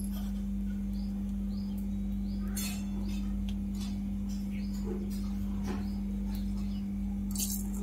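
Oil heating in an iron kadai, giving scattered faint crackles with two louder ones, about two and a half seconds in and near the end, over a steady low hum. Small high chirps repeat every second or so throughout.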